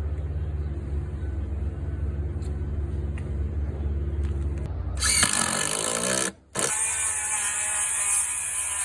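Power tools running: a low steady motor hum, then about five seconds in a sudden switch to a louder, higher whine, broken once by a brief dropout.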